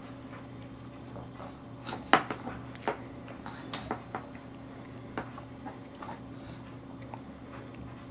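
Scattered light clicks and taps of a feeding spoon against a small plastic bowl and plastic tray, the sharpest few about two to four seconds in, over a steady low hum.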